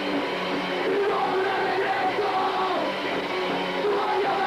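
Punk hardcore band playing live: distorted guitars, bass and drums in a steady wall of sound, with a singer shouting into the microphone.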